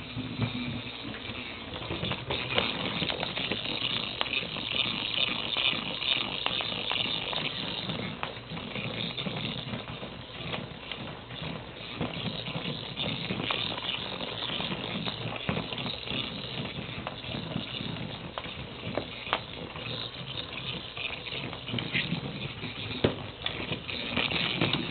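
Motorized toy ball rattling as it rolls across a tile floor, with ferrets' claws skittering and scuffling on the tiles; many quick clicks and knocks throughout.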